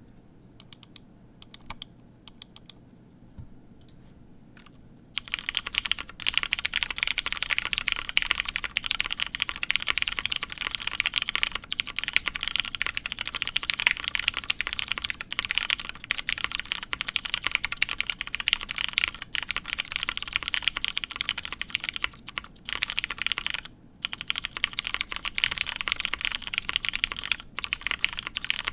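Typing on a Matrix 2.0add mechanical keyboard with lubed Hyperglide MX Brown tactile switches on a polycarbonate plate with GMK keycaps: a few scattered keystrokes, then continuous fast typing from about five seconds in, with a couple of short pauses near the end. The switches have little to no leaf ping, in the owner's view.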